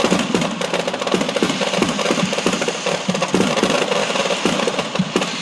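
Fireworks and firecrackers going off in a dense, continuous crackle of rapid pops, with no break.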